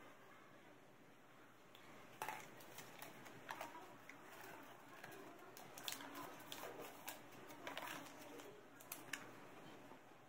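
Faint rustling and crinkling of accordion-pleated craft paper being handled and pressed into a paper fan rosette, with scattered sharp ticks and taps from about two seconds in until near the end.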